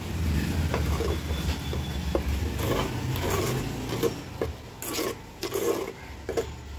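Steel spoon scraping round an aluminium pot in quick repeated strokes, mixing a thick masala paste for fish curry. A low rumble underneath fades out after about four seconds.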